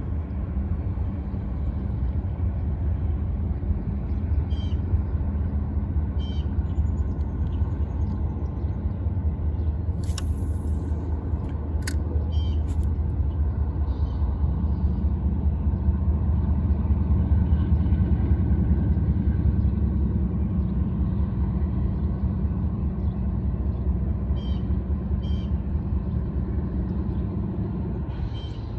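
Steady low rumble of a running vehicle, swelling a little about two-thirds of the way through, with a few faint short high chirps over it.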